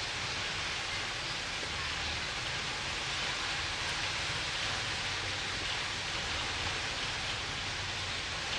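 Steady rushing noise with a low rumble underneath, typical of a ferry's engine and the wash of water around the hull.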